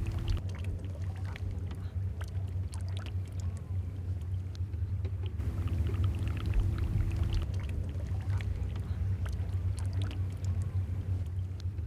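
A steady low hum with many short, faint clicks over it; a higher steady tone joins briefly in the middle.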